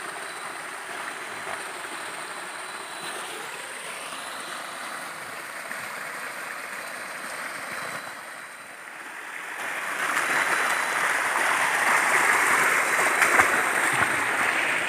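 Steady rushing of water, growing louder about ten seconds in.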